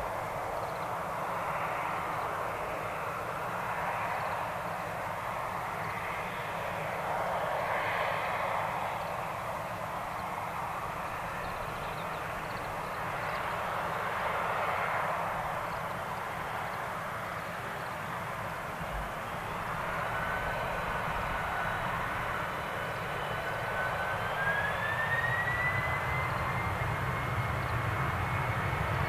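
Boeing 767-300 twin jet engines running at low power with a steady rush. About two-thirds of the way in they spool up, and a whining tone climbs in pitch as power builds, with the rumble growing toward the end: the airliner is setting thrust on the runway for take-off.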